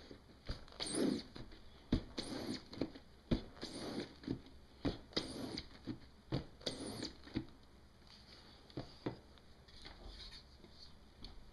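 Squeegee scraping back and forth across a screen-printing screen, pushing ink through the mesh. It makes a series of swishes about every one and a half seconds with small knocks between them. The strokes stop about seven and a half seconds in, leaving a few faint clicks.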